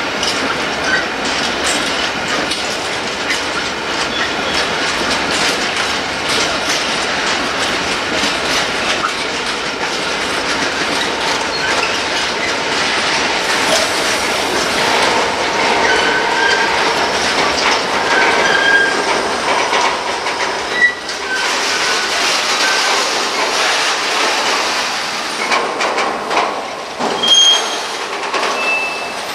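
Freight train of covered hopper wagons and tank wagons rolling past, wheels clacking steadily over the rail joints. Short high wheel squeals come and go through the second half.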